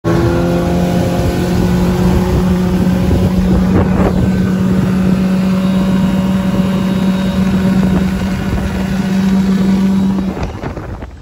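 Outboard motor running at a steady speed on a moving boat, with wind on the microphone. About ten seconds in, the engine note drops away as the boat throttles back and slows.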